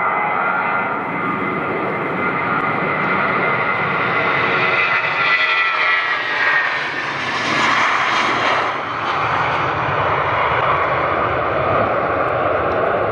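Widebody jet airliner passing close by: the whine of its turbofan engines slides down in pitch as it goes past, with the loudest rush of engine noise about eight seconds in.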